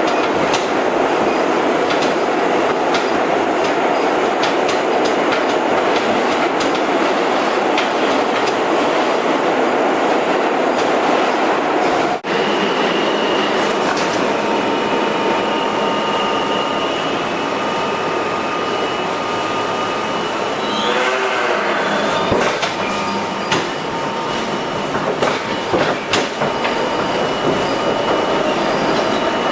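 Inside an R32 subway car running along the track: a steady loud rumble of steel wheels on rail with clickety-clack over the joints. From about halfway, thin high steady tones ring over the rumble, as wheels squeal, and the sound cuts out for an instant about twelve seconds in.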